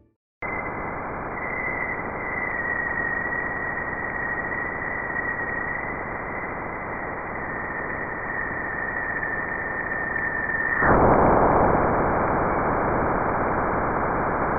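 Juno Waves instrument data from Jupiter's bow shock crossing, played as sound: a steady hiss with a thin high tone for the upstream plasma oscillations. About eleven seconds in the tone stops and the hiss turns suddenly louder and fuller as Juno crosses Jupiter's bow shock.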